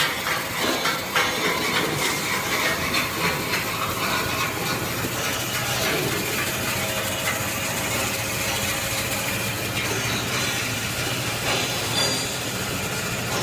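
Band saw tissue-roll cutting machine running: steady mechanical noise with a low hum, and a rapid run of knocks during the first few seconds.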